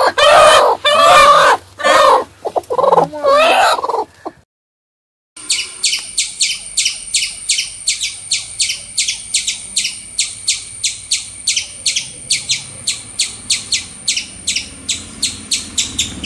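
Chickens clucking loudly for the first four seconds. Then, after a short break, a squirrel's rapid high chirping, an even run of about three or four chirps a second.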